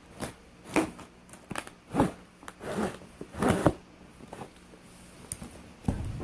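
Knife slicing through packing tape on a cardboard box: a series of short rasping strokes, then quieter handling near the end.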